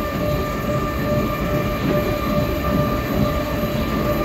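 Electric monorail train running: a steady rumble with a steady whine over it.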